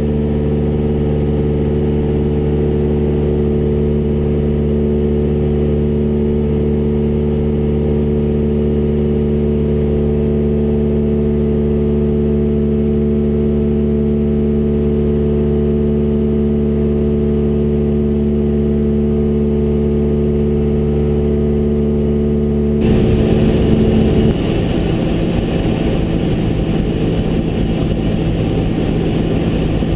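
Cessna 172R's four-cylinder Lycoming engine and propeller droning steadily in flight, heard from inside the cabin. About three-quarters of the way through the sound changes abruptly to a rougher, noisier drone.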